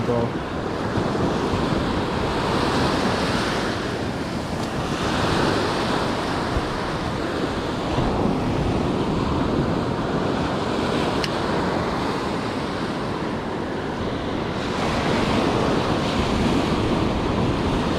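Ocean surf breaking and washing up a sandy beach, with wind buffeting the microphone; the wash swells and eases every few seconds.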